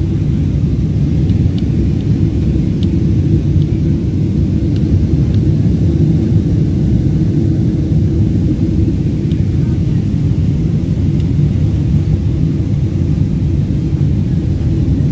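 Steady low rumble inside the cabin of a Boeing 777-300 airliner in flight: engine and airflow noise. A few faint clicks come in the first half.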